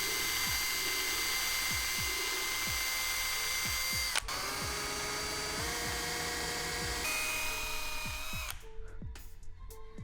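Electric drill running steadily with a high whine as it bores a hole in a carbon skate boot shell. Its pitch drops a little after a click about four seconds in, and it stops near the end. Background music with a steady beat underneath.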